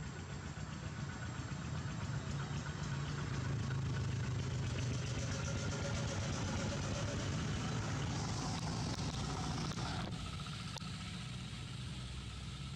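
A motor running steadily with a low hum, under a broad background hiss; the higher part of the hiss drops away suddenly about ten seconds in.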